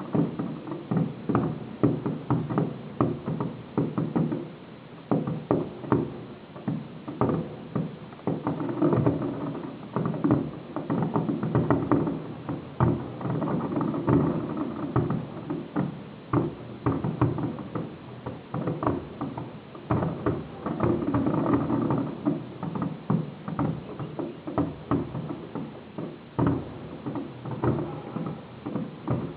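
Fireworks exploding in rapid, irregular succession, several bangs and crackles a second with no let-up.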